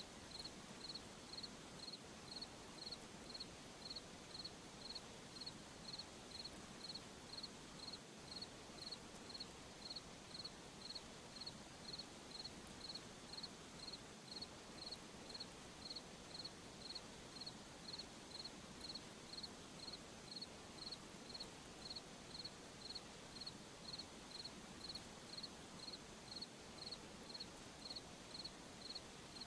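Cricket chirping steadily, a high-pitched chirp about twice a second, over a faint even hiss.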